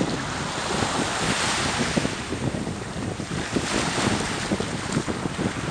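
Wind buffeting the microphone over small waves washing at the water's edge; the hiss of the wash swells twice.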